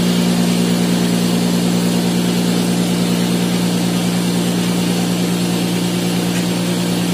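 Cotton candy machine running: its motor and spinner head hum steadily as it spins out sugar floss.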